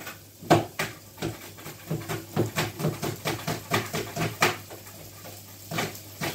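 A kitchen utensil knocking rapidly and evenly, about four strokes a second, for around four seconds, then a single knock near the end.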